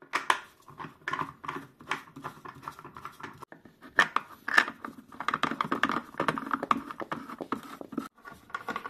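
Plastic furniture leg being screwed on by hand against a wooden sofa frame: a run of irregular scratchy clicks and rasps as the leg is turned, busier in the second half.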